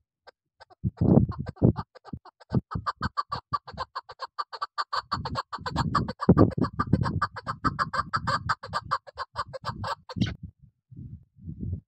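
Chukar partridge calling: a long, fast run of clucking notes, several a second, that grows denser about two seconds in and cuts off suddenly about ten seconds in. Low thuds sound underneath.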